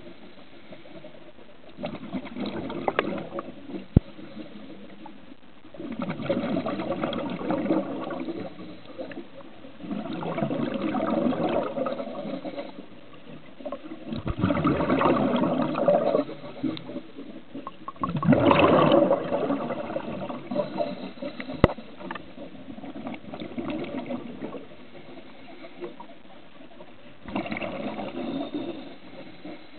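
Scuba diver's exhaled bubbles leaving the regulator underwater, in bubbling bursts of about two seconds that recur roughly every four seconds with the rhythm of breathing. Two sharp clicks stand out, one about four seconds in and one a little past twenty seconds.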